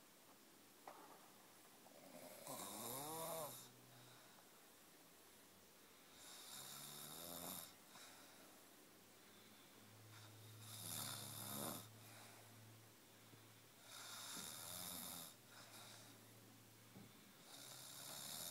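A sleeper snoring quietly: five slow snores about four seconds apart, each a second or so long, with a wavering pitched rattle and an airy hiss.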